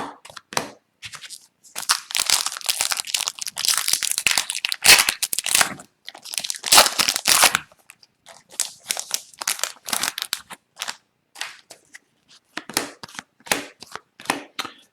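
Trading card packaging crinkling and tearing as hockey cards are handled, dense for a few seconds and then breaking into scattered rustles and small clicks.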